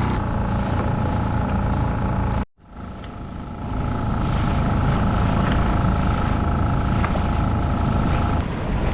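Small skiff's outboard motor running steadily under way, with a steady whine over the engine noise. The sound drops out suddenly about two and a half seconds in and fades back up over the next second or so.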